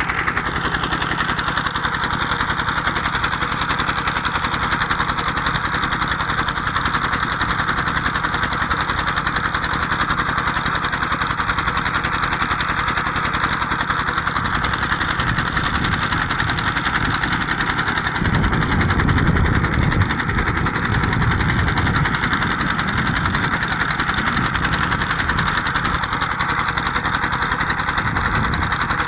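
Petter-type single-cylinder diesel engine driving a tubewell pump, running steadily with a fast, even knocking beat, alongside the steady rush of pumped water pouring from the outlet pipe. The engine sound grows louder and deeper for a few seconds about two-thirds of the way through.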